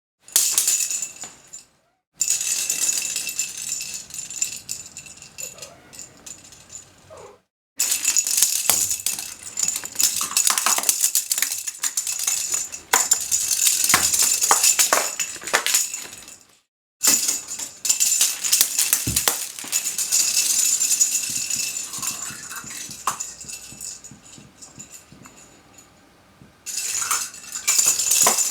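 A rattle ball being batted and rolled about by a cat, its insides rattling in fast clicking runs. Each run starts loud and fades as the ball slows, with a few short silent breaks between runs.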